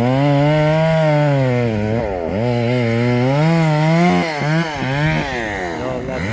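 Two-stroke chainsaw running under throttle as it cuts a poplar tree, its engine pitch wavering up and down and dropping sharply about two seconds in, again around four and a half seconds and near the end.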